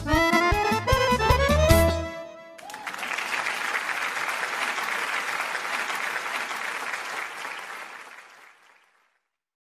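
Band music with a heavy, regular beat and a melodic lead stops about two seconds in. Applause follows and fades out near the end.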